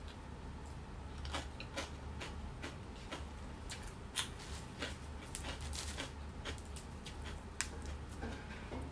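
Close-up eating sounds: chewing with wet lip smacks and an irregular scatter of sharp little clicks, over a steady low hum.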